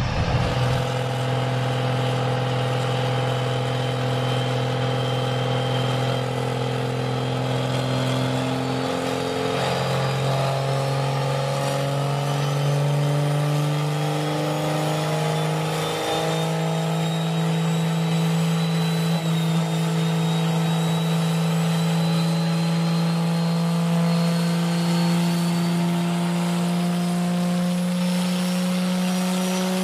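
Diesel pickup truck engine held under heavy load on a chassis dynamometer, its pitch climbing slowly in a few steps as the revs build. A faint high whine rises along with it.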